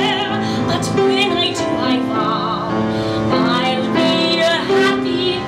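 A woman singing a show tune live, holding several notes with a wide vibrato, accompanied by a grand piano.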